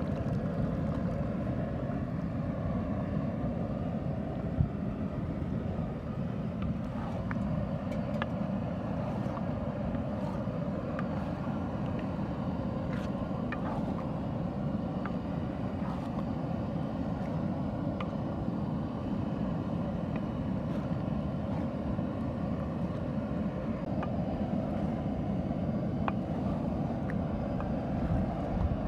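Minced chicken and beaten egg being stirred with a wooden spatula in a large metal cooking pot over a fire: a steady low rumble with scattered light clicks and scrapes, and one sharper knock about four and a half seconds in.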